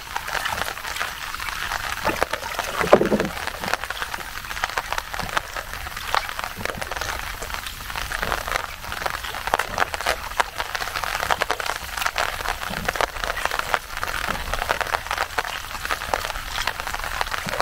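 Steady rain falling, a dense patter of drops, with one short louder sound about three seconds in.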